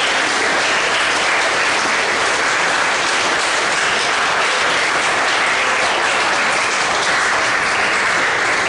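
Audience of students applauding steadily.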